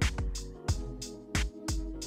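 Electronic background music with a drum-machine beat: low kick thumps and sharp snare or hi-hat hits over sustained synth chords.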